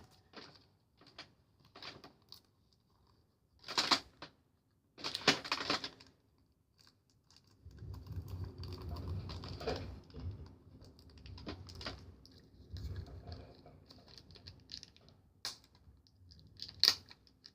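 A stylus prodding and prying at a Shopkins toy package: irregular clicks and taps, a couple of louder crackly scrapes, and a stretch of rubbing and handling noise in the middle as the package is worked open.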